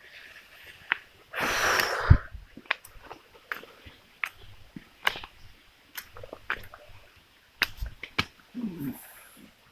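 Footsteps on a wet, slippery path: irregular scuffs and clicks, with a short scraping rush and a low thump about two seconds in, and a brief voice sound near the end.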